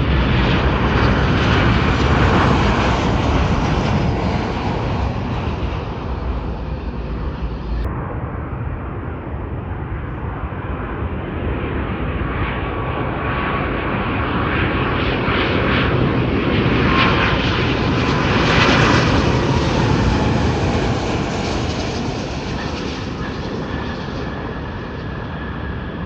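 Airplane engines running loud and steady, swelling to a peak about two-thirds of the way through and then easing off.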